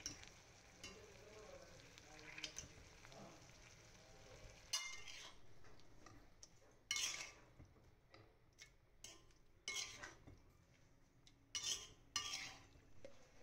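A spatula stirring vegetables in a cast-iron pan, with a faint frying sizzle. From about five seconds in come half a dozen sharp scrapes and clinks as the food is scooped into a stainless-steel mixer jar and the spatula knocks against its rim.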